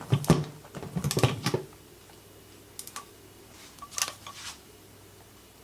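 Light clicks and knocks from an aluminium tripod being handled: a quick cluster in the first second and a half, then a few single clicks.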